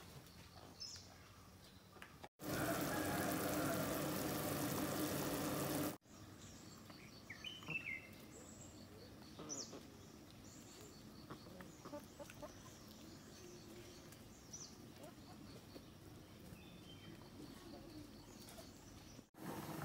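Scattered short bird chirps and calls, several close together about eight seconds in. From about two seconds in, a louder, even rushing noise runs for nearly four seconds and cuts off abruptly.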